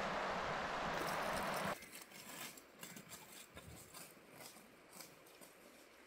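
Steady rushing noise that cuts off suddenly a little under two seconds in. It is followed by faint, irregular footsteps on a path.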